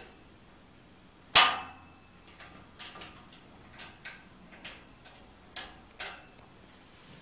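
Glass fittings on a jacketed glass reactor's lid clinking and knocking as they are handled. There is one sharp, ringing clink about a second and a half in, then a string of lighter clicks.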